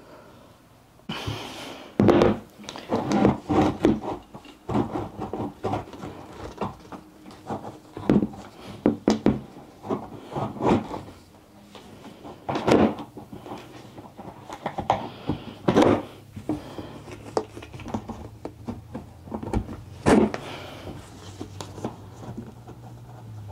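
Irregular knocks, thumps and rubbing as carpeted cat tree parts are handled and fitted together during assembly.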